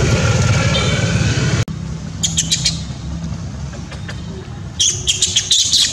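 Steady low rumble of road traffic that cuts off abruptly under two seconds in. A quieter background follows, broken by two clusters of short, sharp, high chirps.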